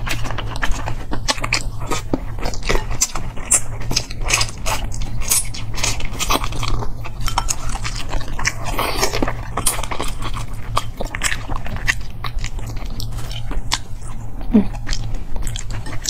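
Close-miked eating sounds of soy-braised forest frog: biting, chewing, sucking and wet smacking at the mouth, with many small irregular clicks, over a steady low hum.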